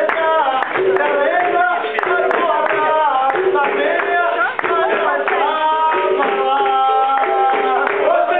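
Capoeira roda music: a group of voices singing together over berimbau and percussion, with the circle hand-clapping in time.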